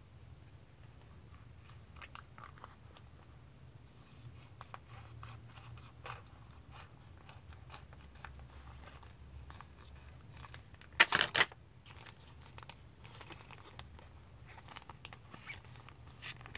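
Scissors snipping through the thin white foot peel mask bootie, with small crisp cuts and rustling of the material, and one brief loud crinkle about eleven seconds in.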